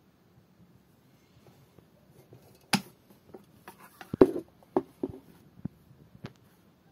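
Metal cigarette case being handled and opened: a sharp click about three seconds in, then a run of knocks and taps as the lid swings open and the case is set down, the loudest just after four seconds.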